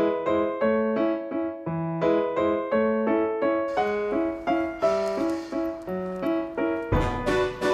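Background music: a piano playing a light melody of short, evenly paced notes.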